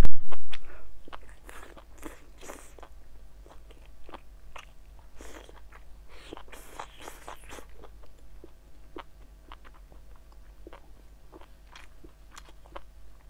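A person biting and chewing spicy grilled meat skewers, with many short, sharp clicks of chewing and biting; the loudest bite comes right at the start.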